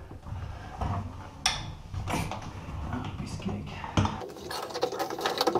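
A pipe wrench working a threaded pipe fitting: sharp metal clicks and clanks as the jaws bite and shift on the pipe, then a run of scraping, squeaky strokes near the end as the fitting turns.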